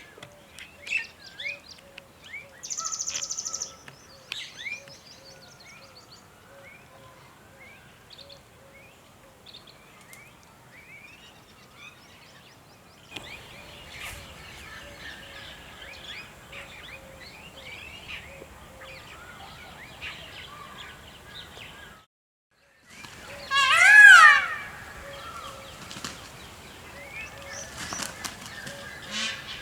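Mixed birdsong: many small birds chirping and trilling over a light outdoor background. Near the end, after a brief dropout, a much louder repeated bird call with a clear pitch rises above the chorus.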